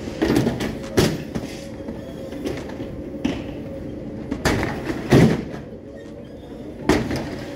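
Airport baggage carousel running with a steady mechanical hum, as suitcases drop from the feed chute onto its metal slats with several loud knocks and clatters: about a second in, twice around five seconds in, and again near seven seconds.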